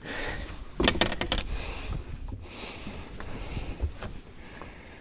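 Handling noise from someone moving about a bass boat: a quick cluster of sharp knocks about a second in, then softer scattered knocks and rustling over a low rumble.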